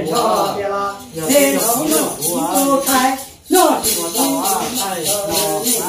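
A man's voice singing in long, bending melodic phrases, with a steady rhythmic jingling like a shaker or tambourine behind it. There is a short break about three and a half seconds in.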